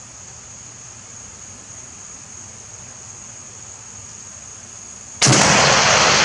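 A single .30-06 rifle shot from an M1D Garand about five seconds in, its loud report ringing on for about a second before dying away. Before it, crickets trill steadily.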